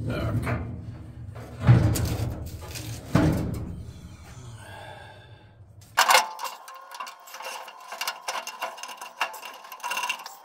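Background music with heavy drum strikes, fading over the first half. Then, starting abruptly, a run of small metal knocks and rattles as a steering column is worked into place through the firewall.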